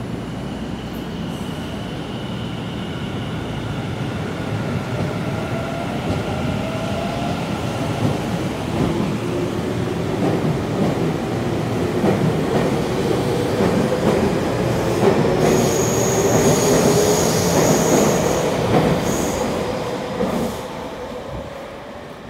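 Tobu 50050-series electric train pulling out and accelerating past. Its traction motors give a whine that climbs in pitch, and its wheels knock over the rail joints as it speeds up. A thin, high steady squeal is heard for about three seconds in the latter part, and the sound drops away suddenly about twenty seconds in as the last car clears.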